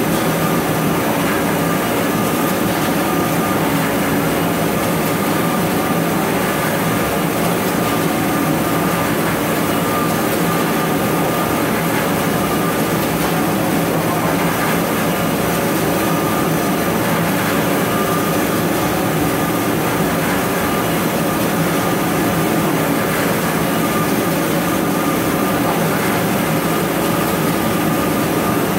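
Toilet paper processing machinery running steadily: a continuous mechanical drone with several held tones and no breaks.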